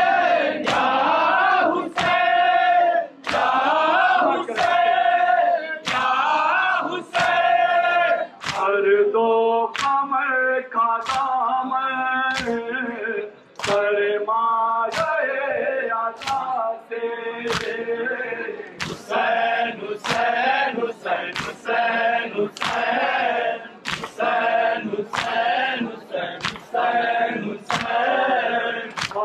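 Noha, a Muharram lament, sung by male voices with the crowd chanting along. A steady beat of open palms striking chests in unison sounds about every two-thirds of a second: matam by the mourners.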